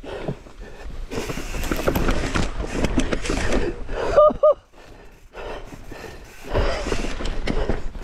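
Mountain bike rattling and clattering down a loose rock trail, with wind buffeting the camera microphone. About four seconds in come two short pitched calls that rise and fall, followed by a brief lull.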